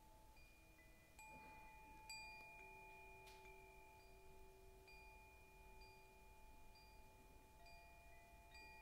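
Very faint background meditation music: soft chime-like tones, each held for a few seconds, coming in one after another.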